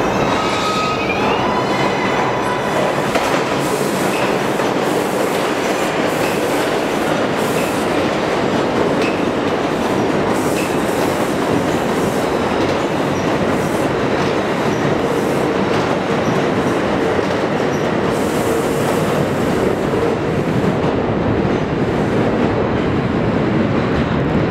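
New York City subway train running through the tunnel, a steady loud rumble with wheel clatter over the rail joints. In the first couple of seconds an electric motor whine rises in pitch as the train gathers speed.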